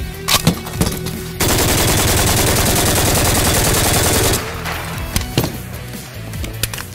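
RPK light machine gun firing one long full-auto burst of about three seconds, with its barrel overheated and burning after some 1,200 rounds of near-continuous fire. A few separate sharp bangs come before and after the burst, over background music.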